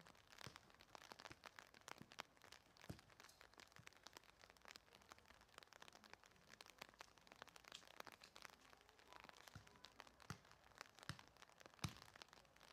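Near silence with faint scattered ticks. A soccer ball is kicked once near the end, a single sharp thud.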